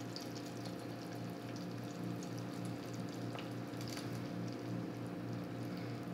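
Hot reduced maple syrup poured in a thin stream from a saucepan into a second saucepan, trickling and dripping. Under it runs a steady low hum that throbs about three times a second.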